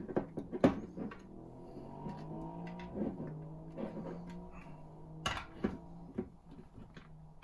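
Plastic model parts handled on a tabletop: sharp clicks and knocks as a plastic plate is pressed into a friction-fit joint, then two louder knocks about five seconds in as the model is set down on the table.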